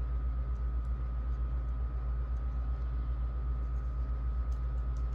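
Steady low background hum with a thin constant high tone above it and a faint hiss, unchanging throughout; no handling sounds.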